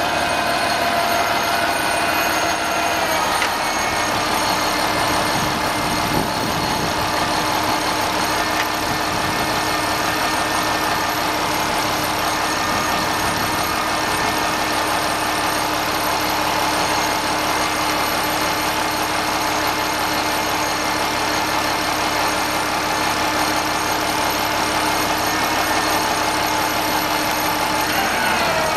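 Seagrave aerial ladder truck's engine and hydraulics running steadily under load while the ladder extends, with a whine that drops in pitch about three seconds in and climbs again near the end.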